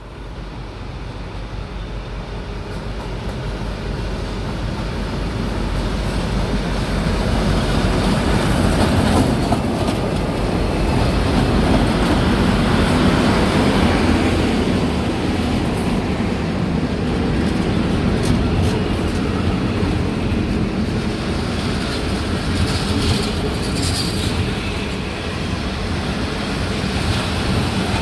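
V/Line N-class diesel-electric locomotive hauling passenger carriages into the station. The engine and rolling stock grow steadily louder over the first several seconds, then hold at a steady level.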